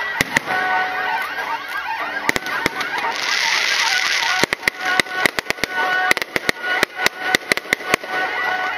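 Aerial fireworks going off: many wavering, shrieking whistles over a string of sharp bangs, with the bangs coming thick and fast from about halfway through.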